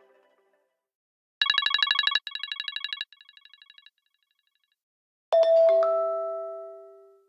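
Apple phone ringtones. A rapid electronic trill plays three times, each run quieter than the one before. After a pause comes a falling two-note chime that rings and fades away.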